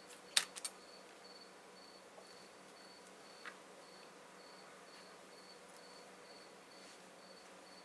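A cricket chirping faintly and evenly, about two short high chirps a second, over a low steady hum. Two sharp clicks sound about half a second in, with a softer one at about three and a half seconds.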